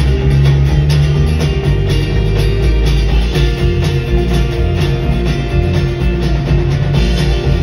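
Live country-rock band playing: electric and acoustic guitars over a drum kit with a steady beat.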